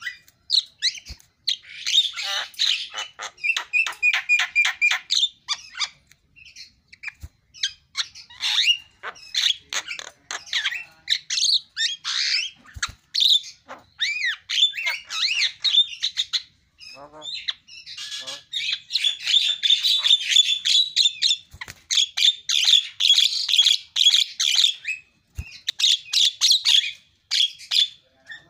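Javan myna singing a long, varied song of harsh chattering, fast rattling note strings and whistled phrases, full of mimicked 'isian' sounds, with brief pauses between bursts.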